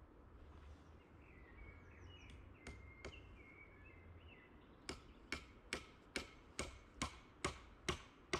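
Tool strikes on wood in a steady run of sharp knocks, about two a second, starting about five seconds in, with faint bird chirps before them.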